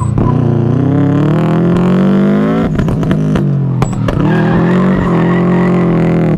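Subaru WRX engine revving hard, its pitch climbing steadily and dropping sharply twice, about three and four seconds in.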